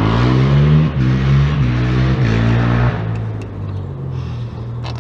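A motor vehicle's engine accelerating. Its pitch climbs and drops back twice over the first three seconds, then it fades away.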